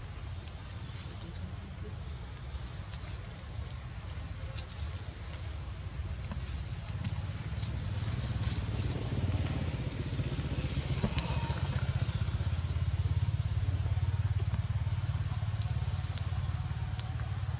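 A low, steady engine rumble with a fast pulse, louder from about halfway through. A bird gives short high chirps every two to three seconds over it, a couple of them drawn out.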